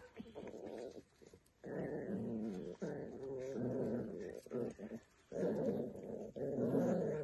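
Puppies growling as they play tug-of-war with a cloth, in long wavering growls that begin about a second and a half in and break off briefly about five seconds in.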